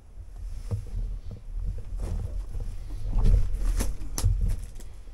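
Footsteps on a rocky, gravelly cave floor, with short scrapes and clicks that come thickest in the second half over a steady low rumble.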